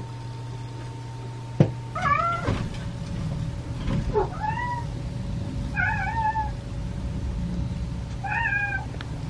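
Kittens mewing: about five short, high-pitched mews spread over several seconds. A single sharp knock comes about a second and a half in.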